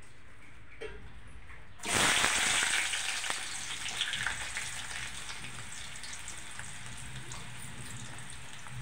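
Hot oil in a steel kadai bursts into a loud sizzle about two seconds in as pieces of food go in, then settles into a steady frying sizzle.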